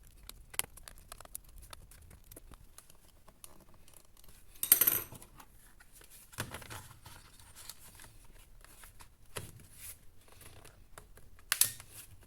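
Small handling noises: scattered light clicks and a few short scrapes or rustles, the loudest about five seconds in.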